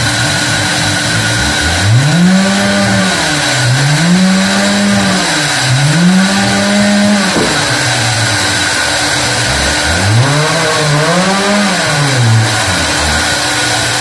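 Sawmill machinery running with a steady hum and whine. Over it, a motor or engine repeatedly speeds up and slows down: three rising-and-falling swells in the first half and two more near the end.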